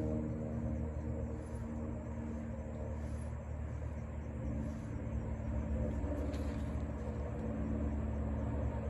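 Steady low engine-like rumble with an even hum, unchanged throughout, and a few faint ticks.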